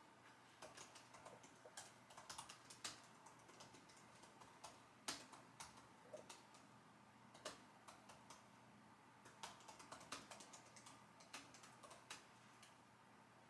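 Computer keyboard being typed on: soft key clicks in irregular runs, broken by short pauses of a second or so.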